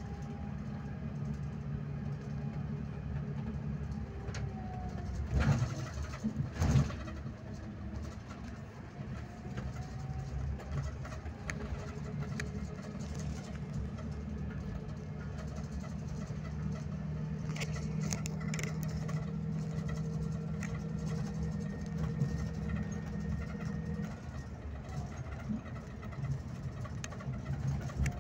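Scania K360IB coach's diesel engine and drivetrain running while cruising, heard from inside the cabin: a steady low drone with a faint whine that drifts down and back up in pitch. Two sharp thumps come about five and a half and seven seconds in.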